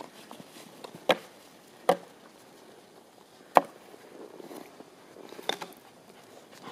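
Four sharp, separate knocks, the loudest about three and a half seconds in.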